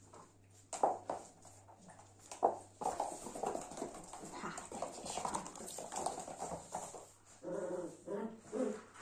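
Corgi puppy, about seven weeks old, making small play sounds while it tugs and chases a toy, its claws clicking and skittering on a laminate floor. A person's voice joins near the end.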